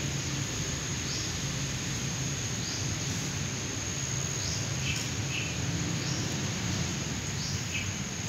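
Outdoor ambience: a steady high insect drone, with a short bird chirp repeating about every one and a half to two seconds over a low steady background noise.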